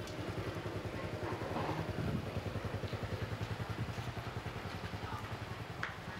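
Small motor scooter engine running steadily with an even, rapid pulse.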